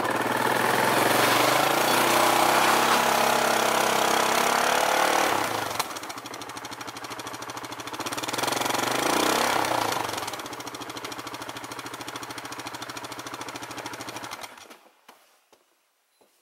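Yamaha Grizzly 700 ATV's single-cylinder engine revving hard as the ATV digs into deep snow and bogs down. It eases off about five seconds in, revs up again around eight seconds with the wheels throwing snow, then runs lower and steady. It cuts off suddenly near the end.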